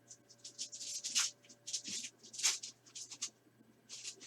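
Trading cards sliding against one another as they are flipped through by hand: an irregular run of short, dry swishes.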